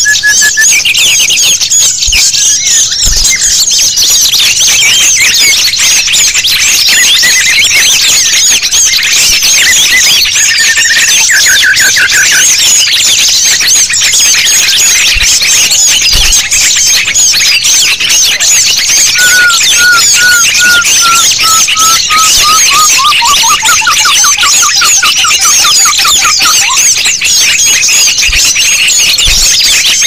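Dense, loud chorus of many small songbirds chirping and twittering at once, a mixed bird-lure recording. A lower run of repeated notes begins about two-thirds of the way in, stepping down in pitch and speeding up into a trill before it stops.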